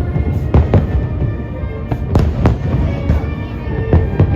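Fireworks show: aerial shells bursting in sharp bangs, several of them close together, over a constant low rumble, with music playing along.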